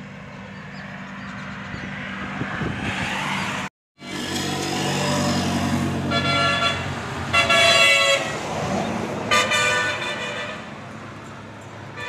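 A motor vehicle going by with its engine running, sounding its horn in three blasts of about a second each and a fainter honk near the end. The sound cuts out completely for a moment just before four seconds in.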